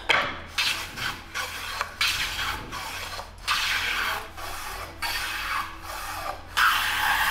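Wooden drum stave being shaved on a Japanese hand plane (kanna), a series of rasping strokes about one a second as curls of wood peel off.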